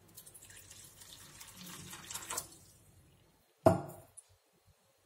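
Water poured from a steel vessel into a pot of soaking rice flakes, splashing for about three seconds and then tailing off. A short, sharp knock follows about a second later and is the loudest sound.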